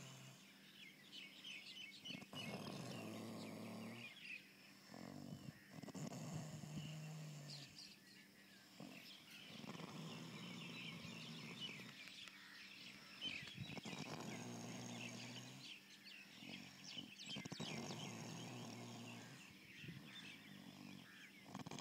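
Snoring during sleep, a rasping snore every three to four seconds, each rising and falling away with the breath.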